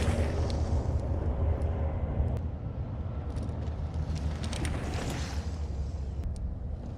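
Mountain bike riding downhill on dirt: wind buffeting the rider's microphone as a constant low rumble, with tyres crunching over the ground and scattered clicks and rattles from the bike. A swell of hissing tyre noise comes about five seconds in, as through a corner.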